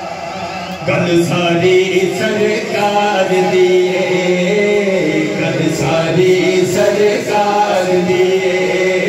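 A man singing a naat into a microphone in long, held, ornamented melodic phrases, the voice growing louder about a second in.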